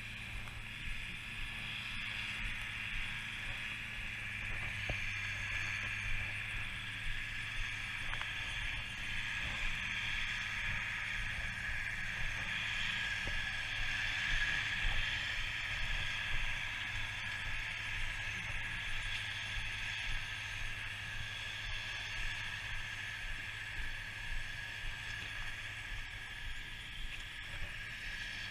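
Steady outdoor background: a continuous high, even hiss with a low hum beneath it, swelling slightly midway, and only a few faint scattered ticks.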